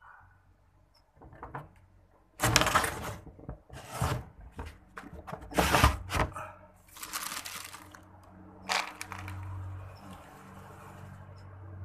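Handling noise close to the microphone: several loud bursts of rubbing and knocking, then a low steady hum near the end.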